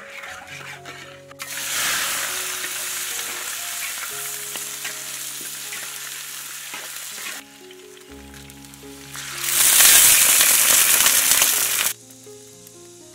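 Crystal sugar bubbling quietly in oil in a wok, then, about a second and a half in, a loud sizzle as chopped pork trotters fry and are stirred with a metal spatula in the caramelising sugar. After a quieter spell, a second, even louder burst of sizzling starts about nine and a half seconds in and cuts off sharply after two or three seconds, under faint background music.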